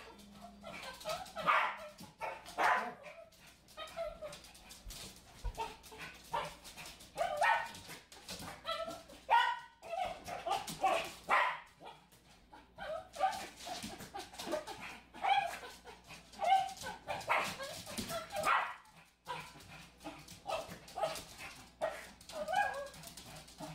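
Small dog barking and yipping excitedly in many short barks while it plays at batting a balloon, with a brief pause about three-quarters of the way in.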